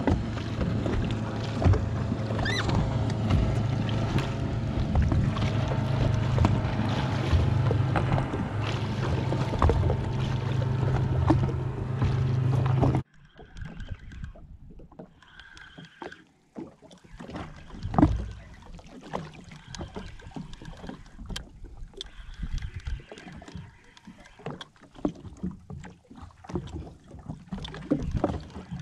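Yamaha WaveRunner FX HO jet ski's engine running steadily with a low hum, with wind over the microphone. About 13 seconds in it cuts off abruptly, leaving a much quieter background of scattered small knocks and clicks, one louder knock a few seconds later.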